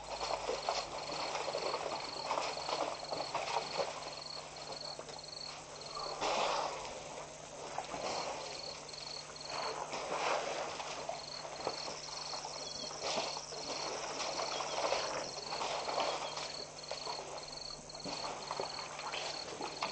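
A herd of African elephants jostling and drinking at a muddy waterhole: shuffling, splashing and scattered knocks that swell and fade in waves. A short high chirp repeats about twice a second, and a steady low hum runs underneath.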